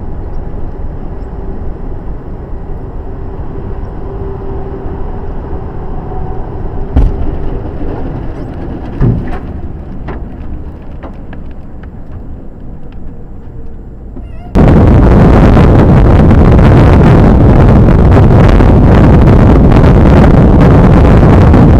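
Steady engine and road noise inside a moving truck cab, with two loud knocks about seven and nine seconds in as a crash happens just ahead and debris is thrown onto the road. Partway through, the sound cuts to a much louder, steady rush of wind noise on the microphone.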